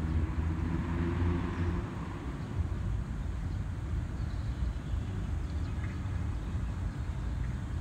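Steady low rumble of city traffic. A vehicle engine stands out more loudly in the first couple of seconds.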